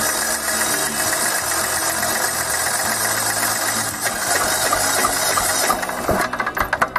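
Electric starter cranking a Kipor 186F single-cylinder air-cooled diesel with the decompressor held, a steady mechanical run that never catches and fires. The mechanic takes this for fuel not yet having reached the injector. The cranking stops about six seconds in and the engine spins down in a few uneven beats.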